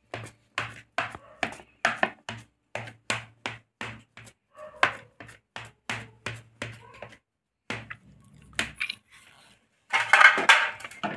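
Knife repeatedly stabbing down through a soft sponge cake and tapping the plate beneath, about three quick taps a second, stopping about seven seconds in. A louder clatter follows near the end.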